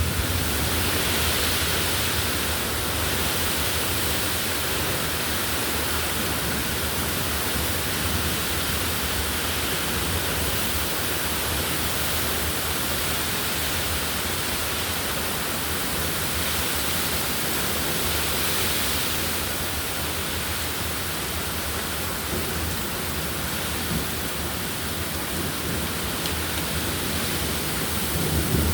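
Wind and rain of a thunderstorm: a steady, loud rushing hiss with a low rumble underneath, unchanging throughout.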